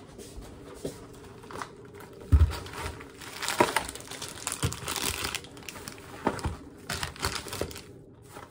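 Groceries being unpacked from a fabric tote bag on a kitchen counter: a thump as the bag is set down about two seconds in, then plastic bags and food packaging crinkling and rustling in irregular bursts.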